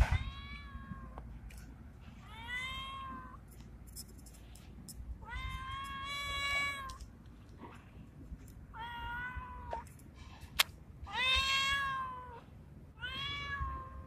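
Male cat's mating call: six drawn-out meows, each a second or so long, about two seconds apart. There is a low thump right at the start and one sharp click between the fourth and fifth meows.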